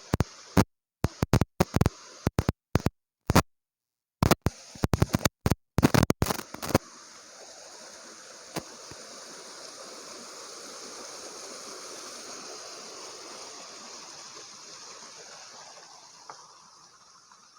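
For the first several seconds the sound is chopped into short loud fragments that cut in and out with dead silence between them. Then comes the steady rush of a waterfall, which swells and slowly fades away near the end.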